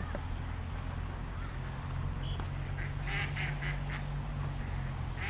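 Ducks quacking, a quick run of about five calls some three seconds in, over a steady low hum.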